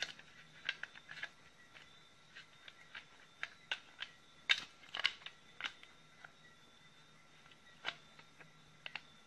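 Scattered small plastic clicks and taps as the spring-loaded release latch is pressed and fitted back into a Makita 18 V battery's plastic case, the sharpest about four and a half, five and eight seconds in.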